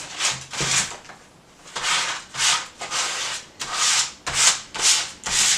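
Sandpaper rubbed by hand back and forth over the plastic body of a Nerf Alphahawk blaster, a run of scratchy strokes about two a second, with a short pause about a second in. The plastic is being scuffed to get it ready for paint.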